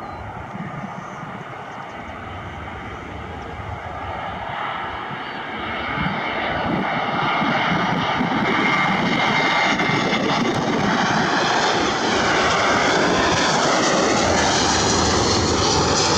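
Airbus A321 airliner's jet engines passing close at low altitude: a steady jet roar and whine that builds over the first six seconds and then holds loud, its hiss sweeping up and down in pitch as the aircraft goes by.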